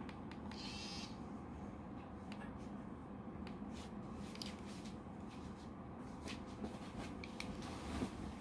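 Faint small clicks and scrapes of a plastic vape pod cartridge being fiddled into the body of an Oxva X pod mod, where it will not lock, over a steady low room hum, with a short hiss about a second in.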